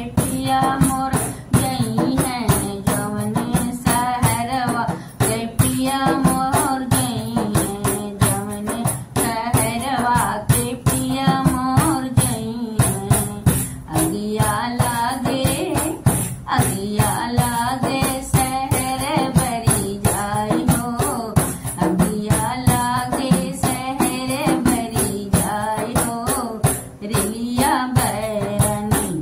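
A woman singing an Awadhi kaharwa dance song over a steady, jingling percussion beat.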